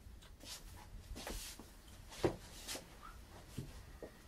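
Faint scattered rustles and soft knocks of people moving about, with one sharper tap a little past two seconds in.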